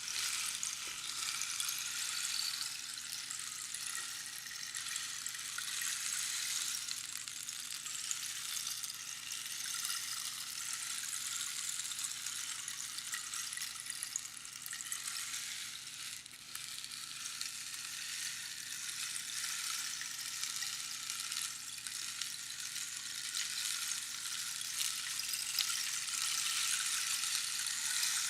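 Rainstick: pebbles trickling down past the pins inside the hollow cactus tube, making a continuous dense crackling patter like falling rain that swells and eases slightly.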